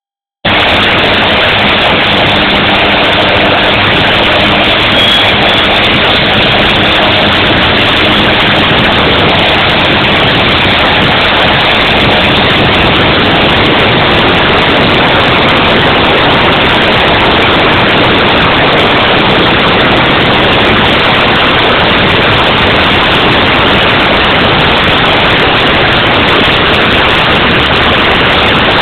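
Propeller airplane engine running at a steady speed: a loud, even rushing noise from engine and propeller that neither rises nor falls.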